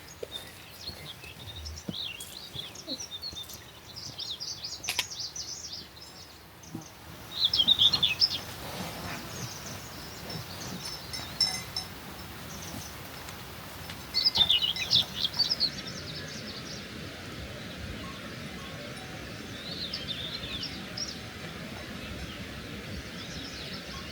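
Wild songbirds singing in short phrases of rapid high chirps, repeating every few seconds over a steady outdoor hiss.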